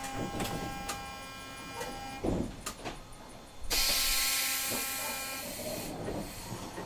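Old tram's onboard equipment giving a steady electrical hum that cuts out after about two seconds and returns, with a loud burst of air hissing about halfway through.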